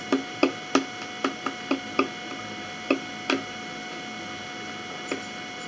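Fork clicking and tapping against a plastic bowl of spaghetti: a quick run of sharp clicks in the first two seconds, then a few more spaced out, over a steady electrical hum.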